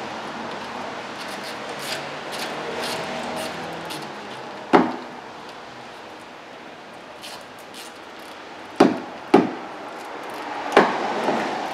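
Hand wrenches clinking against the brake caliper as the upper 14 mm caliper guide-pin bolt is tightened, the slide pin held with a thin wrench so it doesn't turn. Light clicks in the first few seconds, then four sharp metal knocks, two of them close together.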